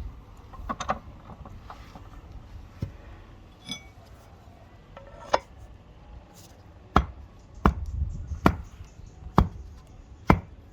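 Sharp knocks of a tool striking wood: about six loud strikes, roughly one a second, in the second half, with lighter knocks and handling noise before them.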